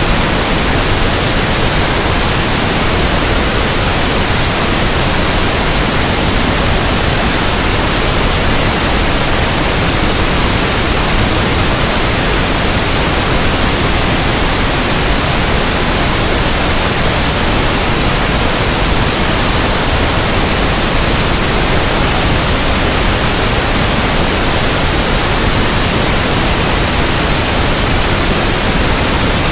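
Pink noise: a steady, even hiss across the whole range, unchanging throughout.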